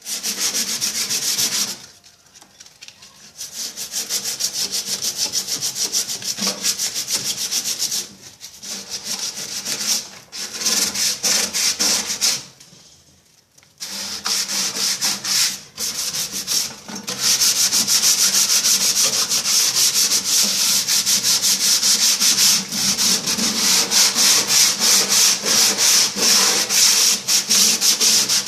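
Sandpaper scraped by hand against the rusted metal inside a microwave oven's cooking cavity, in fast back-and-forth strokes that stop briefly a few times, to take off rust and peeling paint.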